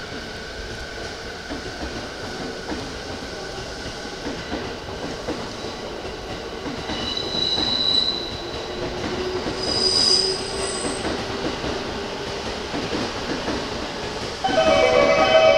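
JR electric commuter train running through the station, with rumble and wheels squealing high-pitched on the curving track twice, about halfway through. Near the end a loud platform melody suddenly starts playing.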